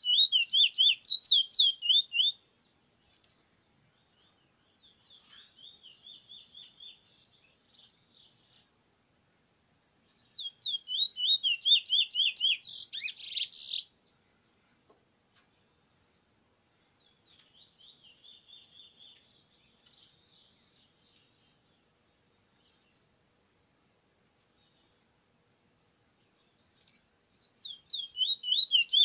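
Caged 'bullfinch' (chestnut-bellied seed finch) singing in bouts of rapid, repeated sliding notes. Loud phrases come at the start, in the middle (ending in a harsh burst) and near the end, with softer song between them.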